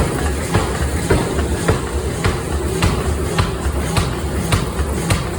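Forging machinery in a steady rhythm: sharp metal blows repeating a little under two a second over a low pulsing drone.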